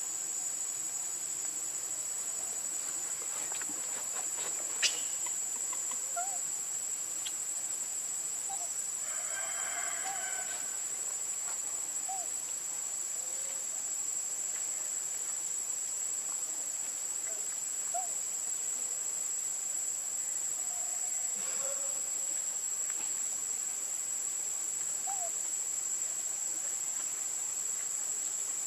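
Steady high-pitched insect drone, with a few faint short chirps and a brief call about nine to ten seconds in.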